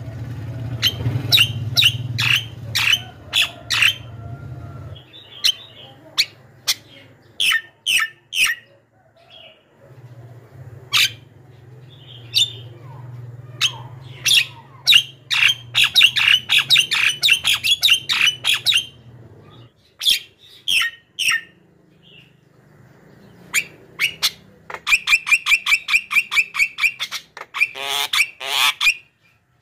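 Javan myna calling at close range: harsh squawks and clicks in quick series. Near the end comes a fast, even run of rattling calls.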